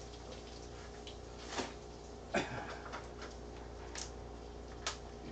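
Steady kitchen background hum and hiss, broken by four light clicks and knocks spread a second or so apart, as a small container is handled.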